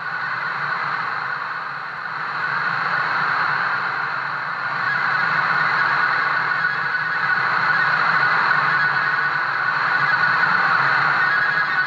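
A steady droning hiss of noise with a low hum under it and a thin high whine. It swells louder about two and a half seconds in and again about five seconds in.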